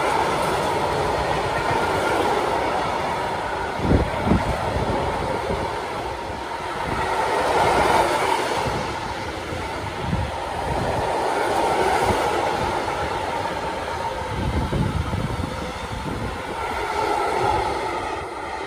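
A freight train of tank wagons rolling past: a steady rush and rumble of steel wheels on rail that swells and fades as the wagons go by, with a few sharper knocks, two about four seconds in and one near the middle.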